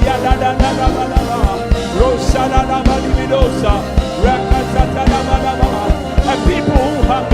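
Live worship music: a steady drum beat under held chords, with a voice gliding over it.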